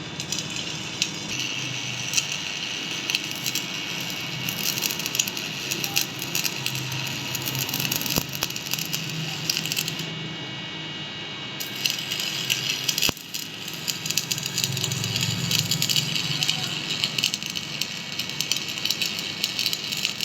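Metal lathe running with a cutting tool on a welded workpiece: a continuous rattling, crackling scrape over a steady machine whine, with frequent sharp clicks.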